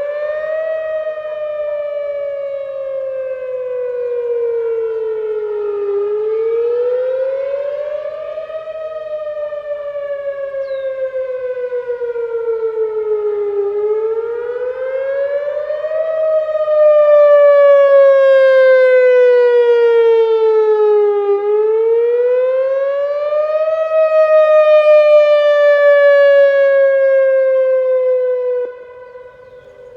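Whelen WPS 3016 electronic outdoor warning siren sounding its wail tone: a slow rise and fall in pitch, about four sweeps. It gets louder about halfway through and drops away abruptly near the end.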